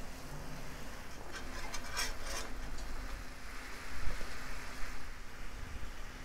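Chicken broth and lemon juice with onions simmering in a skillet, with a light bubbling hiss, while a wooden spatula stirs and scrapes through the liquid. A few sharp clicks of the spatula against the pan come a little past a second in.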